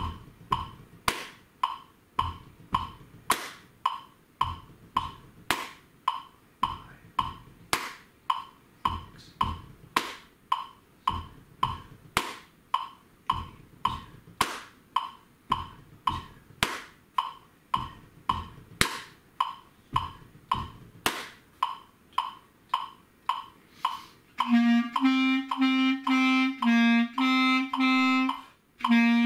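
A metronome clicks steadily at 108 beats per minute, a little under two clicks a second, through the opening rests. About 24 seconds in, a clarinet comes in over it with short, separate notes in its low register, with a brief breath pause near the end.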